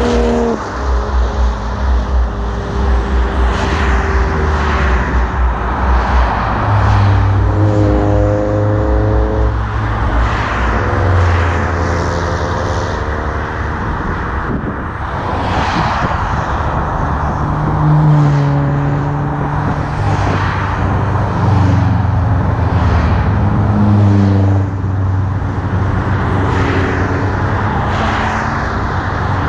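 A string of cars and a minibus driving past on a highway one after another. Each one swells up in engine and tyre noise, its engine note dropping in pitch as it goes by, then fades.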